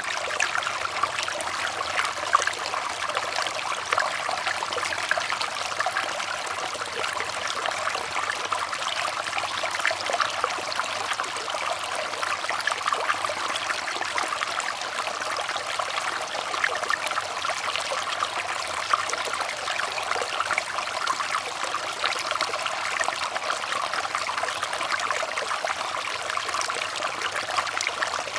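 Water trickling and splashing steadily, like a small stream running over stones, with many small splashes.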